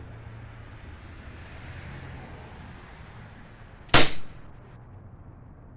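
A CO2 blowback BB pistol fires a single sharp shot about four seconds in, followed within a fraction of a second by a softer second crack. A faint steady hiss lies underneath.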